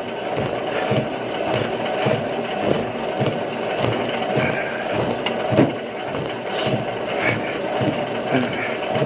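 Footfalls on a Cybex treadmill belt at a steady walking pace of about two steps a second, over the treadmill's steady running.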